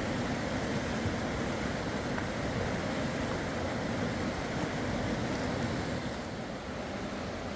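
Rushing river water, a steady noise that eases a little near the end.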